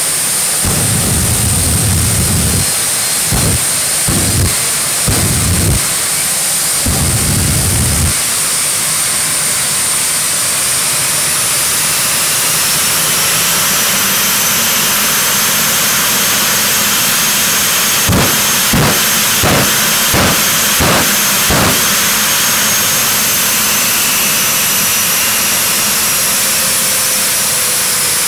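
Jet engine of a 1940 Ford pickup running with a steady high whine that rises in pitch about twelve seconds in. Over it come several deep afterburner bursts in the first eight seconds, then a quick run of about six sharp bursts a little past halfway.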